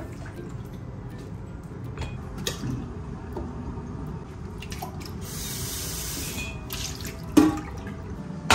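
Kitchen tap running and splashing into a stainless steel sink while leafy greens are rinsed, with some dripping. A single sharp clank sounds about seven seconds in.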